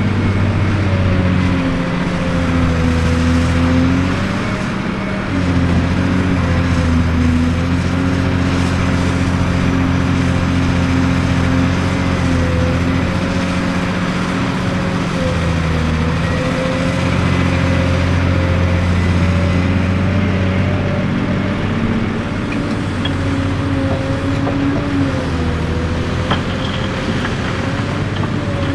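Cat 385C large hydraulic excavator at work: its diesel engine runs steadily, the note dipping and recovering a few times, under a whine that wavers in pitch.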